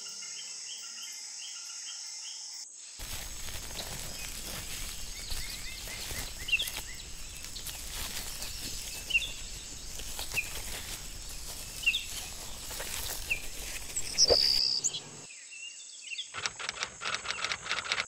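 Rainforest ambience. First a steady high night-insect chorus with a chirp repeating several times a second. Then, after a sudden change, a rushing noise with scattered short bird chirps, and a run of rapid clicks near the end.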